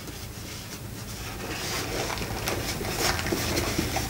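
Hands rummaging inside a cardboard box, rustling and crinkling the packaging with small scrapes and clicks, growing louder toward the end.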